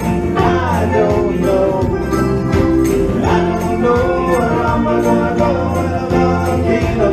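A song playing between sung lines, with a steady beat, bass and jingling percussion.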